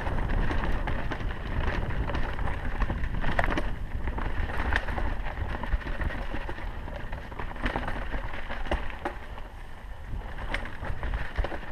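Mountain bike descending a rocky dirt singletrack: wind buffeting the microphone as a low rumble, tyres rolling over dirt and stones, and frequent sharp clicks and knocks as the bike rattles over the rough ground.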